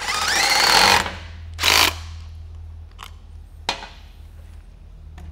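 Cordless impact driver tightening a stainless T-bolt hose clamp on a silicone coupler: a loud run of about a second with a rising motor whine as it hammers, then a second short burst, followed by two light clicks.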